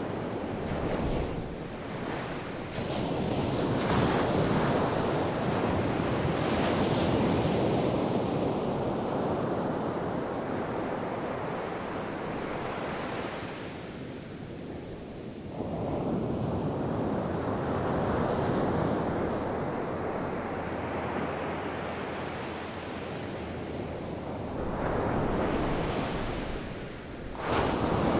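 Ocean surf breaking on a sandy beach in slow surges: a wave rushes in and washes up, fades, and the next breaks about every eleven or twelve seconds.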